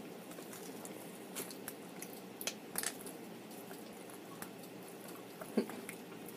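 Close-up chewing of a bean and cheese burrito: soft, wet mouth sounds with scattered short smacks and clicks.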